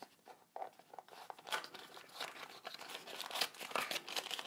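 A clear plastic packaging bag crinkling and rustling as it is pulled from a small cardboard box and handled. A few faint rustles at first, then a busier run of crinkles from about a second and a half in.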